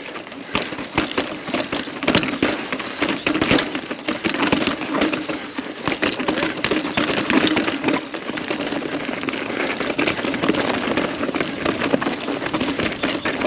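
Mountain bike clattering over a rough, rocky trail: a dense, irregular run of knocks and rattles.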